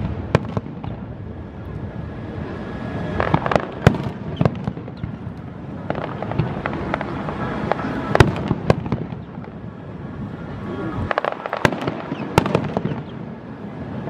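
Fireworks display: aerial shells bursting in sharp bangs at irregular intervals over a continuous background din, with clusters of quick bangs about four seconds in, around eight seconds and again near twelve seconds.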